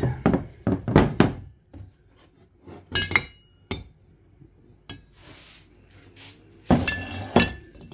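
Metal boat propellers being handled and set down on a wooden workbench: clusters of knocks and clinks against each other and the metal shafts near the start, about three seconds in, and near the end, some leaving a short metallic ring.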